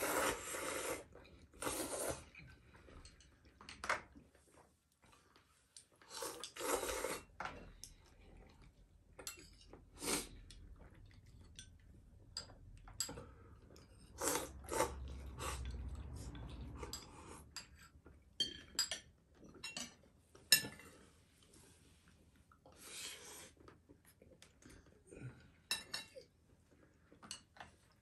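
Noodles being slurped from bowls in several hissing bursts, near the start, around two seconds in, around seven seconds and again later, between frequent light clicks of chopsticks and spoons against ceramic bowls and plates.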